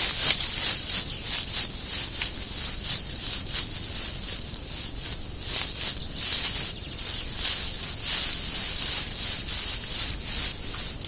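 A group of wild boar moving through dry leaf litter and mud: a busy, irregular patter of hoof-steps and crackling, rustling leaves in quick bursts.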